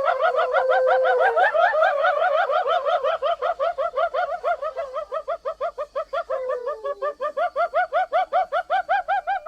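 Spotted hyena giggling: a fast run of short, high, rising whoops, about four a second, that run together at first and break into separate pulses about three seconds in.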